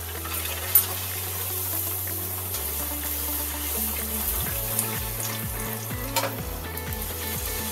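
Bhatura frying in hot oil in a wok, with a steady sizzle as it is pressed and basted with a metal spoon, and a sharp click about a second in.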